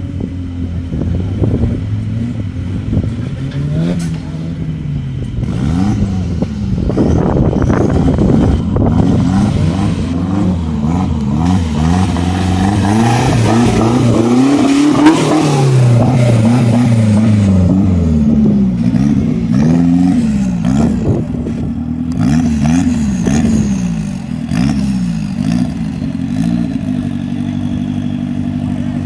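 Off-road buggy engines revving hard again and again, the pitch climbing and falling with each blip of the throttle as the buggies claw up steep loose slopes. In the middle comes a loud spell of spinning tyres throwing dirt. Near the end an engine settles into a steady idle.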